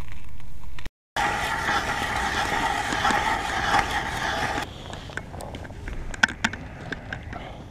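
A hand ice auger grinding through lake ice, a steady scraping that stops a little past halfway. After it come quieter handling sounds with a few sharp clicks.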